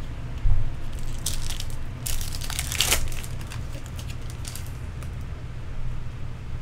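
Foil trading-card pack wrapper being torn open and crinkled by hand, in short irregular bursts that are loudest and densest about two to three seconds in, over a low steady hum.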